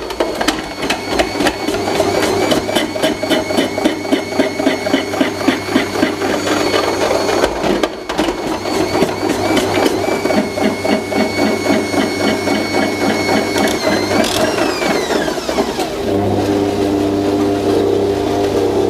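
Bosch MUM 5 stand mixer's motor driving the continuous-feed slicer with the French-fry disc, with a fast rattle as the disc cuts a peeled potato pushed down the feed tube. About 14 seconds in the pitch rises briefly, then falls as the motor is switched off and spins down; a lower hum carries on until shortly before the end, the machine briefly running on after switch-off to park the drive.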